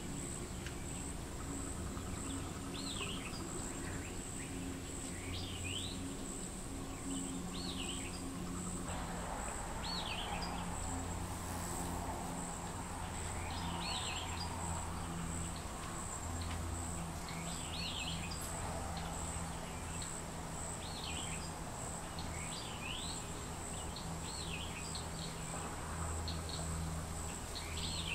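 Outdoor ambience with a steady, high-pitched insect trill and a bird repeating a short call every two to three seconds, over a low steady hum.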